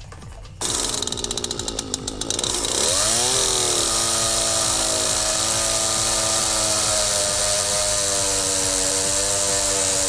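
Husqvarna 240 two-stroke chainsaw, its carburetor freshly cleaned and now running: it patters fast at low revs, revs up about three seconds in, then runs at high revs cutting into a log, its pitch sagging slightly under the load.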